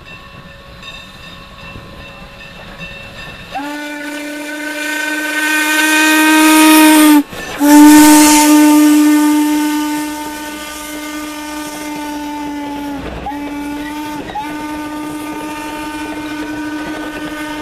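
Norfolk & Western No. 475's steam whistle, a 4-8-0 steam locomotive's, sounding long, long, short, long (the grade-crossing signal) as the engine passes close by, loudest as it goes past. Under the whistle the locomotive and its wooden passenger coaches rumble by on the rails.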